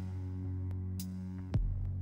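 Background electronic music: sustained bass and synth notes with light, regular percussion ticks, and a downward sweep into a deep bass hit about one and a half seconds in.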